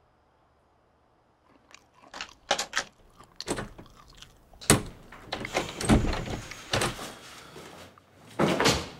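An apartment door being unlocked, opened and shut: a run of clicks and rattles starting about two seconds in, with a few thumps and a loud one near the end.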